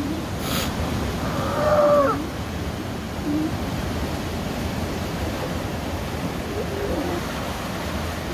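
A sea lion calling: one clear call of about half a second, a second and a half in, followed by a few fainter, lower calls. Steady surf noise runs underneath.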